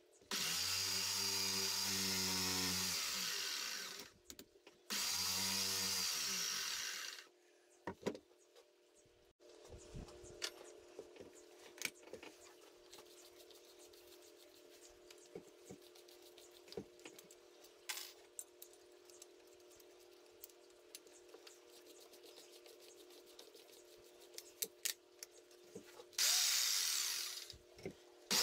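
Corded jigsaw cutting a slot in a softwood board: the motor spins up and saws for about four seconds, stops, then saws again for about two seconds. A long stretch of clicks and handling follows while the blade is changed, then the saw runs briefly once more near the end.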